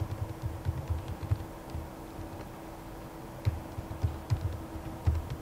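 Typing on a computer keyboard: irregular key clicks in two runs with a short pause between them, over a steady low hum.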